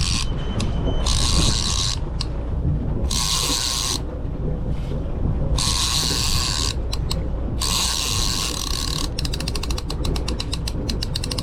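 Spinning fishing reel ratcheting in bursts of about a second with short gaps, then a fast run of separate clicks near the end, while a hooked bluefish is being played. A steady low rumble runs underneath.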